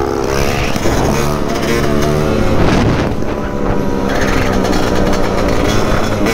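Dirt bike engine running under throttle while riding, its pitch climbing as it revs up, dropping about three seconds in, then climbing again.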